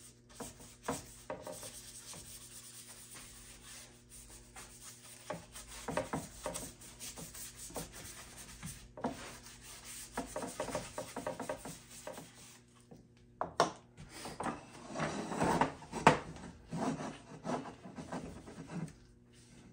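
A cloth rag rubbing over a wooden panel in irregular wiping strokes, working finish into the wood. There is a sharp knock past the middle, followed by a louder stretch of rubbing.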